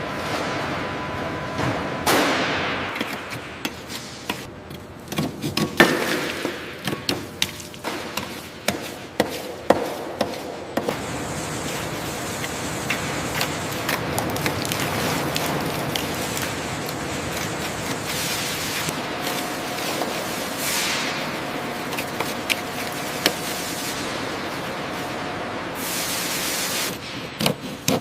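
Industrial workshop noise: a run of sharp metallic knocks and clanks in the first third, then a steady hiss with a few light taps.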